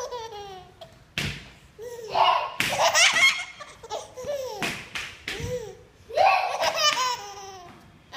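A baby laughing in repeated bouts, short high-pitched peals with brief pauses between them.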